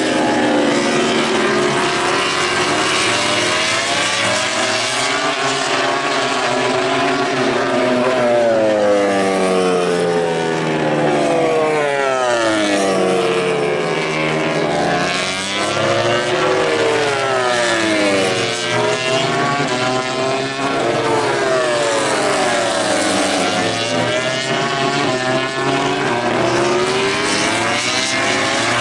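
MotoGP racing motorcycles passing on the track one after another at high speed. Their engine notes overlap in a continuous loud stream, each rising and then falling in pitch as a bike goes by.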